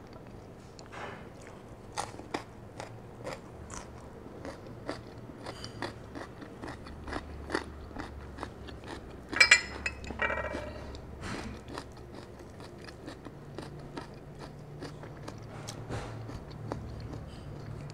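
Close-miked crunching and chewing of a raw cucumber stick: a running series of short, crisp crunches, with one louder brief burst about halfway through.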